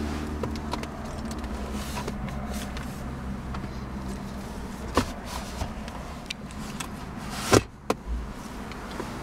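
Center armrest and console of a Mini Cooper Clubman being handled: a few clicks and knocks, the loudest about seven and a half seconds in, over a low steady hum in the car's cabin.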